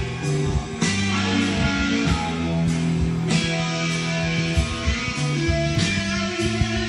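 Guitar playing an instrumental song intro: sustained chords struck about every two and a half seconds over low held notes.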